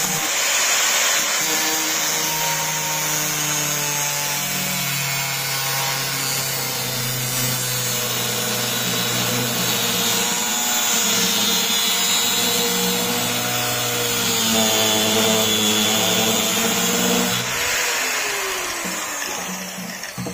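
Electric angle grinder with an abrasive cutting disc running and cutting through a 9-volt battery, its motor pitch wavering as the disc bites. Near the end the pitch falls as the grinder winds down.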